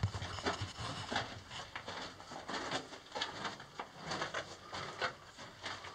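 Footsteps of people walking on the gravelly rock floor of a narrow mine tunnel: an uneven series of boot crunches and scuffs, about two a second.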